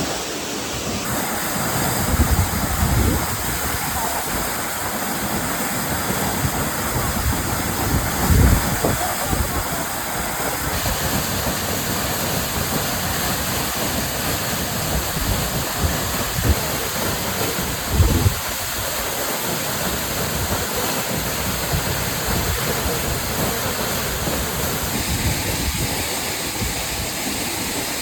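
Waterfall rushing steadily, a dense even roar of falling water, with a few low gusts of wind buffeting the microphone.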